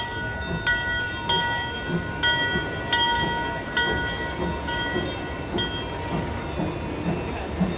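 A bell struck over and over, roughly once every three-quarters of a second, each stroke ringing and decaying, over a steady low rumble. The strokes grow weaker near the end.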